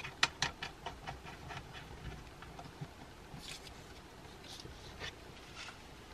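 Small clicks and light rattles of a red cable's crimped lug being fitted onto the terminal post of a grid-tie limiter inverter, with soft rustling of wires being handled. A quick run of clicks in the first second, then scattered fainter ones.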